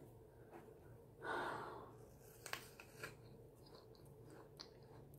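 A breath out about a second in, then a few faint crunches of a person biting into and chewing an apple.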